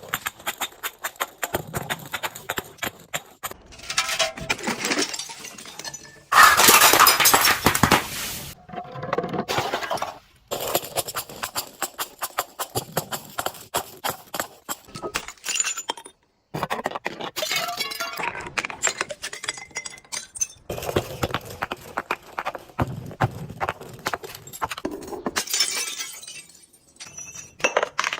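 Glass bottles being broken and crushed: crackling, crunching shards and clinks in a run of separate takes that start and stop abruptly, with a loud shatter about six to eight seconds in.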